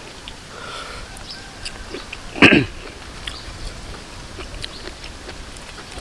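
A person eating very spicy food: faint, scattered crisp chewing clicks, and about two and a half seconds in one short, loud cough-like vocal outburst.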